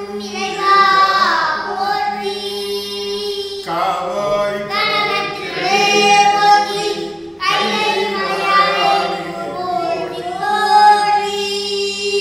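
A voice singing a Tamil Shaiva devotional invocation in three long, melodic phrases, with short breaths between them.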